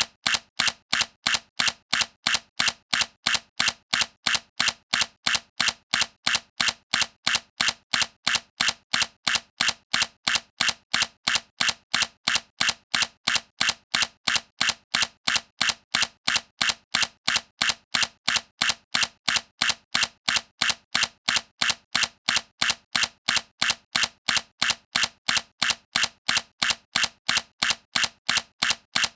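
Sony A7C mirrorless camera's shutter firing over and over in an even rhythm, about three sharp clicks a second, as in continuous shooting.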